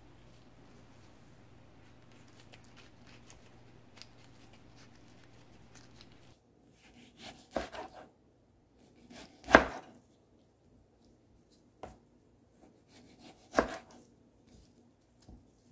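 Chef's knife cutting through ripe tomatoes and knocking down onto a cutting board: separate chops about two seconds apart, the loudest near the middle, after a few seconds of faint soft ticks.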